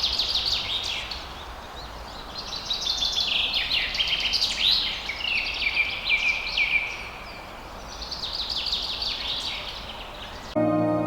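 Songbird singing in three bursts of rapid trills made of short, downward-sweeping high notes, over a steady background hiss. Music cuts in suddenly near the end.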